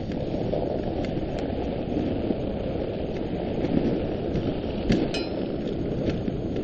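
Dog sled running over a packed snow trail: a steady rushing noise of the runners on snow and wind on the sled, with scattered light clicks and a sharp, briefly ringing clink about five seconds in.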